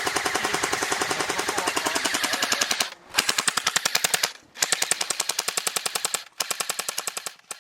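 Airsoft electric gun firing on full auto, a rapid rattle of about a dozen shots a second, in four long bursts with short pauses between them. The last burst fades away near the end.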